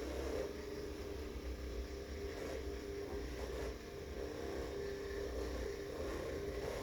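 Electric percussion massager running steadily against the back muscles: a steady motor hum that wavers slightly as it is pressed and moved.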